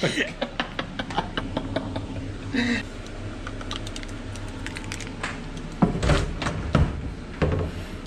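Irregular light clicks and taps of cups and small objects being handled on a countertop by an espresso machine, with a few heavier knocks about six to seven and a half seconds in.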